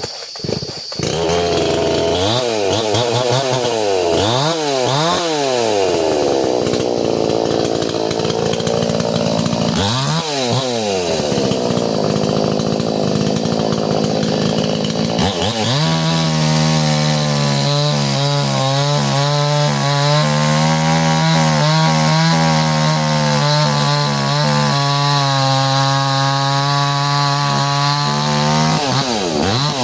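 Chainsaw felling a tree: the engine is revved up and down in repeated swings for about the first fifteen seconds, then held at high revs, fairly steady, while it cuts. The revs dip briefly near the end.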